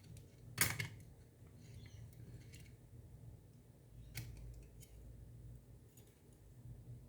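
A few sharp clicks and taps of small parts being handled. The loudest comes just over half a second in, another around four seconds in, and a fainter one near six seconds.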